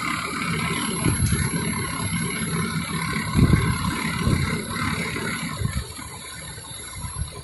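Fire engine's motor running steadily, with irregular low rumbles a few seconds in.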